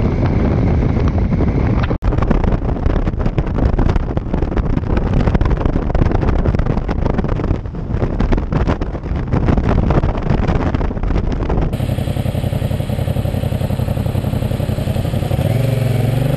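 Motorcycle ride recorded on helmet cameras: dense wind buffeting on the microphone over engine and traffic noise, broken by two abrupt cuts. Near the end a motorcycle engine revs up, its pitch rising.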